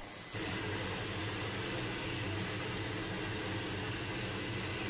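MQ-8B Fire Scout unmanned helicopter running with its rotor turning: a steady turbine-engine and rotor noise with a faint high whine, starting about a third of a second in.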